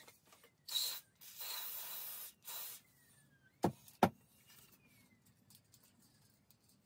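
Three short bursts of hiss in the first three seconds, the middle one the longest, then two sharp knocks about a third of a second apart.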